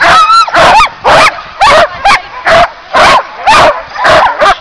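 Sled dogs barking and yelping, loud barks about twice a second with high yips and whines in between.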